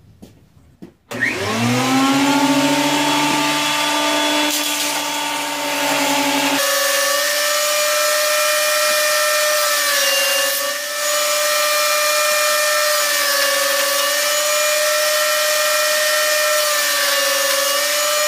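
Grizzly G0725 6-inch benchtop jointer switched on about a second in, its motor whining up to speed and then running steadily. A board is fed across the cutterhead, and the pitch dips slightly a few times under load as it cuts.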